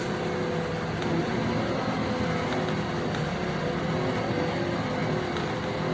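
LiAZ-5292.65 city bus's diesel engine running steadily while the bus drives along, heard from inside the passenger cabin with the rumble of road noise.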